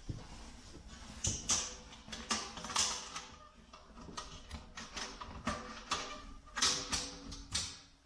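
Non-woven vacuum filter bag rustling and crinkling as it is pushed down by hand into a stainless steel vacuum tank, with irregular light clicks and knocks as its clipped edge meets the metal.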